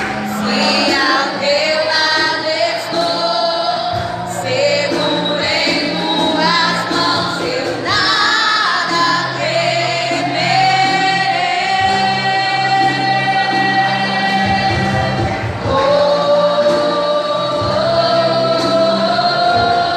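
Gospel song: a choir and a lead female voice sing long held notes over sustained bass chords and a light steady beat.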